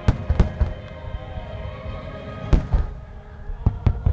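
Aerial fireworks shells bursting with sharp booms in three clusters: just after the start, about two and a half seconds in, and near the end. Show music plays steadily underneath.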